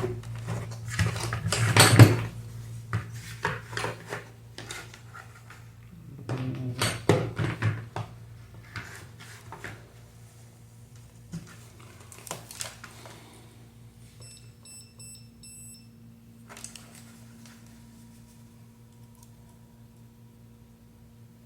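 Clicks and clatter of small parts and tools being handled on a workbench, then a short run of four or five high electronic beeps about two-thirds of the way in, over a steady low electrical hum.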